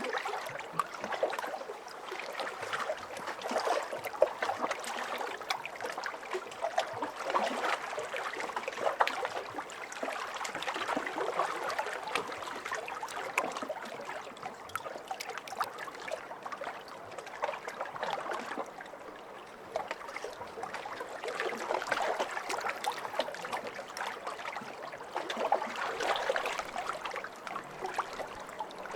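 Small lake waves lapping and splashing, with many little splashes, swelling and easing every few seconds.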